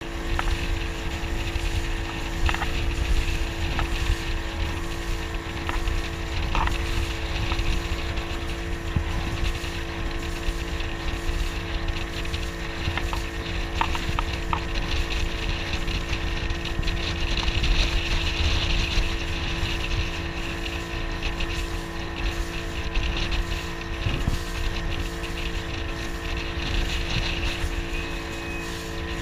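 Small motorboat's engine running at a steady speed, with wind rumbling on the microphone.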